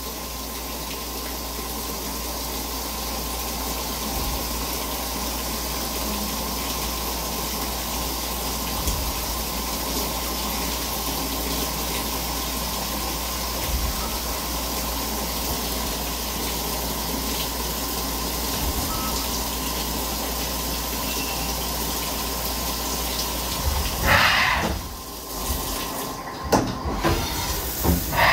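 Haas SL30 CNC lathe running a turning cycle under flood coolant: a steady rush of coolant spray with a faint steady whine from the machine. There is a louder burst about four seconds before the end, and more bursts right at the end.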